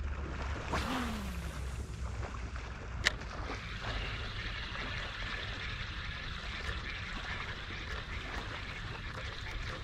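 A spinning rod and reel casting and retrieving a lure. There is a falling swish about a second in as the lure is cast, and a sharp click about three seconds in. After that the reel is cranked steadily, over a low rumble of wind on the microphone.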